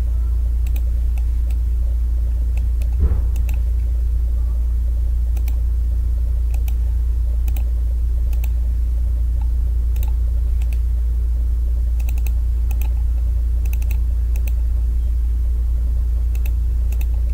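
Computer mouse clicking irregularly, often in quick pairs, as objects are picked on screen, over a loud steady low electrical hum. A soft thump about three seconds in.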